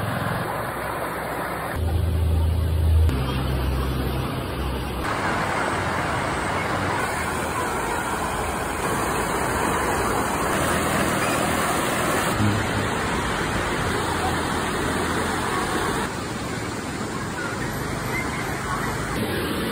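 Shallow river rushing over rocks and rapids: a steady, even rush of flowing water. The sound changes abruptly several times as short clips are cut together. A low rumble comes in for about three seconds near the start.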